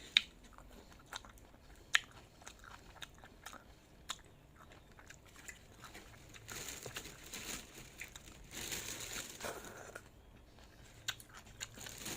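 Close-up eating sounds: crunchy bites and chewing, with two sharp loud crunches in the first two seconds and many smaller crackles. About halfway through come two longer stretches of steadier noise.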